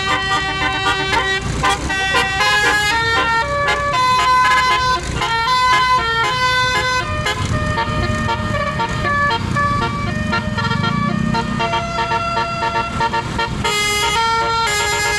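Basuri telolet bus horn playing a tune: a string of held notes stepping quickly from pitch to pitch, over a low rumble underneath that swells around the middle.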